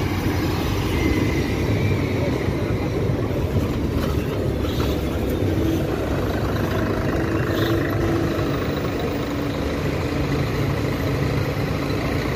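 Natural-gas city buses running close by, a steady engine rumble mixed with street traffic noise.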